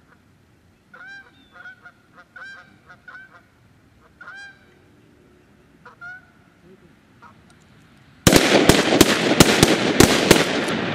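Canada geese honking in short calls during the first several seconds. About eight seconds in, a sudden, loud, rapid volley of gunshots follows, around ten in under three seconds.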